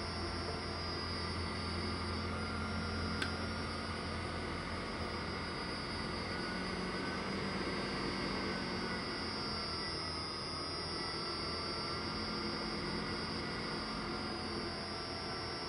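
Old microwave fan driven by a half-horsepower three-phase motor on a frequency inverter, blowing air up the levitation tube: a steady whir with a hum underneath and a thin whine that dips in pitch and comes back up around the middle as the PID controller changes the fan speed to hold the ping-pong ball's height. One short click about three seconds in.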